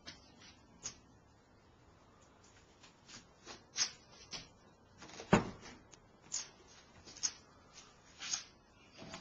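Scattered clicks, knocks and rubbing as the motorcycle seat is handled, with one sharp, loudest knock about five seconds in.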